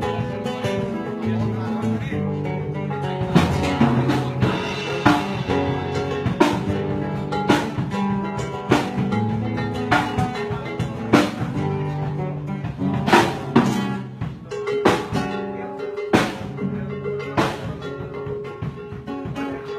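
Drum kit being played in a loose beat, strikes coming roughly once a second from about three seconds in, over guitar playing.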